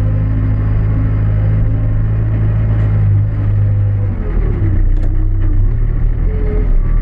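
New Holland B95B backhoe loader's diesel engine running steadily, heard from the operator's seat. About four seconds in, its pitch dips and then climbs again.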